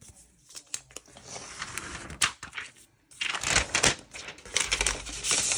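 Packaging of a new iPad being handled and unwrapped: crinkly rustling and tearing with scattered sharp clicks, loudest in two stretches from about three seconds in and near the end.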